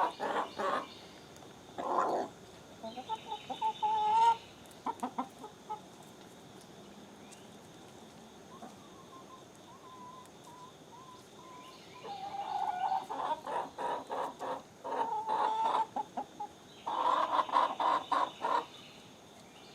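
Backyard hens clucking in short bouts. A quieter stretch of several seconds falls in the middle, and a loud bout of rapid clucking comes near the end.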